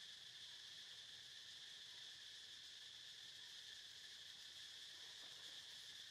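Faint, steady insect chorus: an even high-pitched drone that holds without a break.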